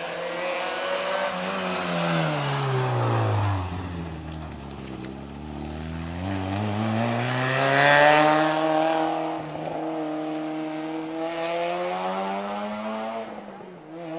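Citroën Saxo rally car's engine: the revs fall as it slows for a bend, then climb hard as it accelerates past, loudest about eight seconds in, and climb again through the next gear near the end.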